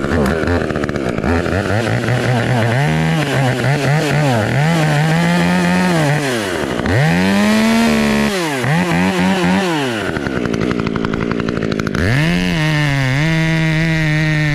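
Two-stroke chainsaw revving and cutting, its engine pitch climbing and falling repeatedly. It drops back sharply twice midway, then holds steady at high revs near the end.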